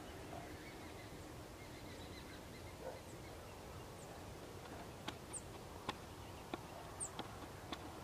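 Faint outdoor ambience with a steady low hiss, over which small birds give short, high, scattered chirps. Several sharp clicks come in the second half.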